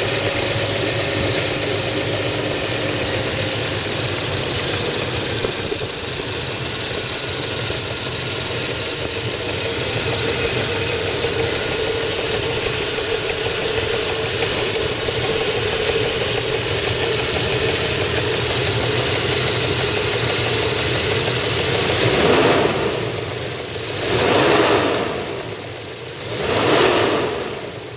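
Mercedes-Benz M119 V8 running steadily, with the timing chain noise the engine is known to make, then revved briefly three times near the end.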